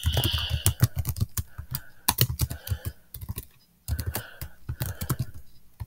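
Typing on a computer keyboard: a quick run of keystrokes, a pause of under a second about three seconds in, then more keystrokes.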